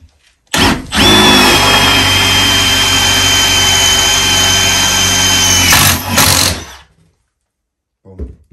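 Power drill boring a 9 mm hole through iron with a Milwaukee Shockwave titanium bit: a steady run with a high whine, starting about half a second in, then two short bursts near the end before it stops about seven seconds in.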